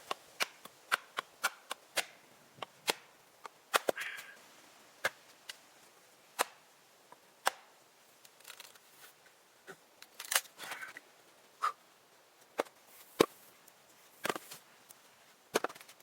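Axe strikes on wood, chopping: a series of sharp, irregular blows, quick at first and then more spaced out, with a brief crackle of wood after a few of them.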